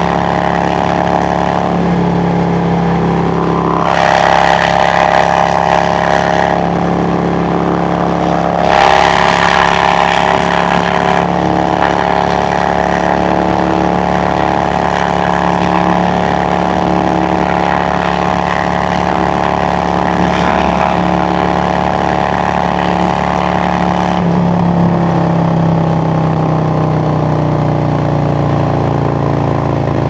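2017 Harley-Davidson Road Glide Special's Milwaukee-Eight 107 V-twin running at highway cruising speed through its exhaust, with wind rush. Twice in the first ten seconds the rushing noise grows louder and brighter for a second or two, and near the end the engine note falls steadily as the bike slows.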